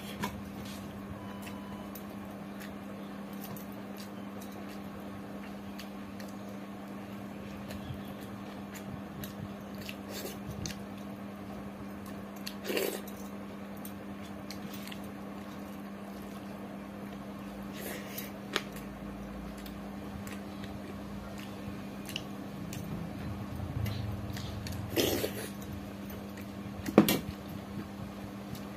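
Fingers mixing and scooping rice on a steel plate while eating: soft squishes and occasional light clinks against the metal, with a sharper clink about a second before the end. A steady low hum lies under it.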